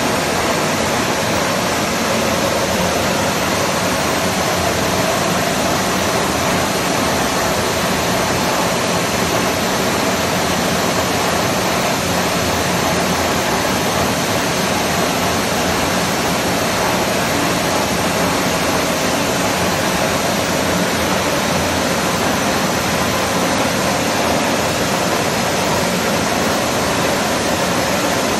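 Bed-type milling machine running under power: a steady, even rushing whir that does not change.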